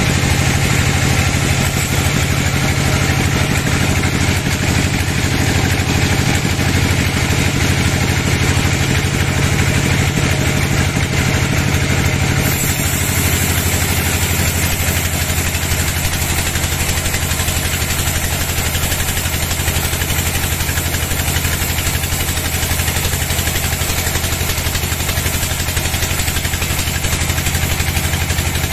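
Band sawmill running and its blade sawing lengthwise through a teak log: a steady machine noise over a low drive hum. The hum shifts a little about twelve seconds in.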